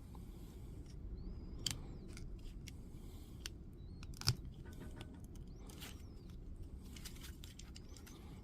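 Quiet handling sounds of small parts being worked on by hand: scattered light clicks, a sharper one a couple of seconds in and a louder click about four seconds in, with a few faint squeaks, over a steady low background rumble.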